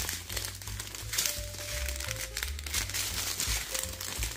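Clear plastic bags of diamond painting drills crinkling as a strip of them is handled and stretched out, over background music with a steady bass line and a few held melody notes.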